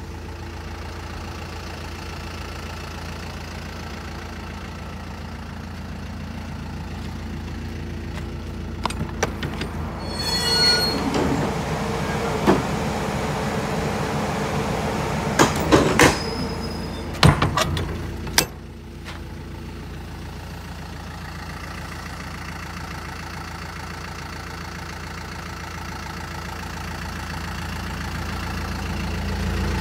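Toyota Dyna truck's engine idling steadily, while the metal rear doors of its box body are unlatched and swung open with clicks and clanks about nine seconds in, then shut again with several loud knocks and a final slam about eighteen seconds in.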